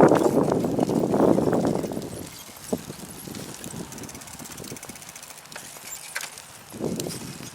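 Wind buffeting the microphone of a moving bicycle, strong for the first two seconds, then dropping to a quieter rush with a few sharp clicks and a brief gust again near the end.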